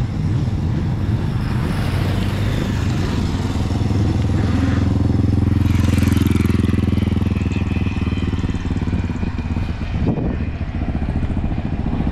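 Motorcycle engine running at low revs, growing louder towards the middle and easing off again.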